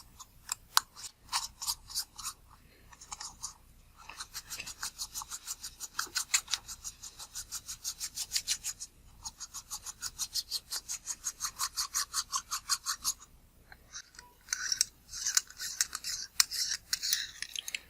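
A threaded ring being unscrewed from a Zeiss S-Planar 60mm f/2.8 macro lens. It makes runs of quick scratchy ticks, about four or five a second, broken by short pauses. Near the end comes a rougher, irregular scraping as the ring comes free.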